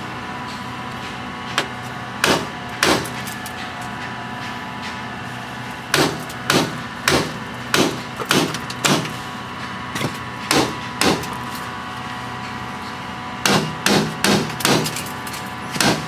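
A metal seatbelt buckle struck hard again and again against a car's side window glass, giving sharp knocks: a few at first, a steady run of about a dozen, then a quick flurry near the end. The glass does not break.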